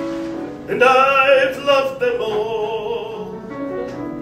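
A man singing in a full, operatic style with piano accompaniment, holding a long note with vibrato that starts a little under a second in.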